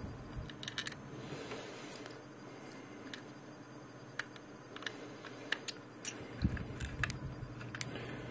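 Small precision screwdriver turning screws into a plastic electronics enclosure: faint, scattered clicks and ticks of the tip and screws against the plastic case, with a soft thump about six and a half seconds in.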